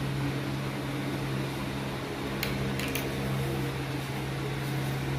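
A steady low motor hum, with two faint clicks a little past the middle.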